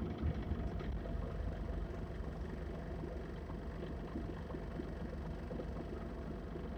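Mitsubishi Fuso Aero Star (PJ-MP37JK) city bus's diesel engine idling at a standstill: a steady low rumble.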